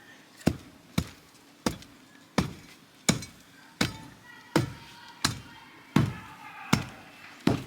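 Hand tamper pounding dirt down around a reset fence post: a steady series of sharp strikes, about one every 0.7 seconds.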